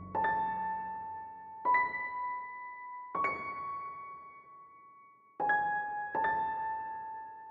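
Background music: a slow piano melody of single notes, five of them struck a second or two apart, each left to ring and fade.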